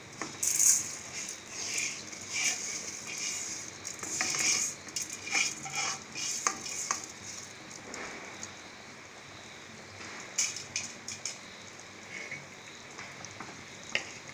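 Spoon scraping fried seeraga samba rice off a pan into a pressure cooker of boiling biryani masala, a run of scrapes and metal clinks over the first seven seconds. After that comes a quieter steady sizzle of the boiling pot, with a few more spoon clinks as the rice is stirred in.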